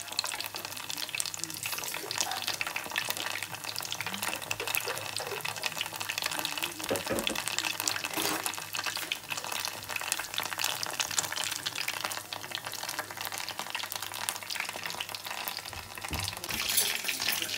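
Samosas being refried in a pot of hot oil: a steady sizzle with many fine crackles.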